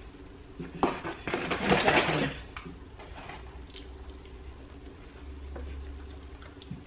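Sounds of eating KFC fries by hand: a short rustle of the cardboard chip carton about a second in, then soft chewing with a few small clicks over a low steady hum.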